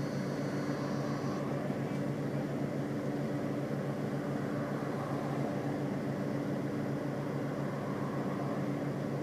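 Iveco Crossway LE bus's Cursor 9 six-cylinder diesel running at a steady engine speed, heard from inside the bus, with a steady hum and no revving. A faint high-pitched whine stops about a second and a half in.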